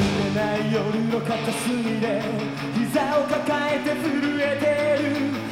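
A rock band playing live: electric guitar over the band, with a singer's voice.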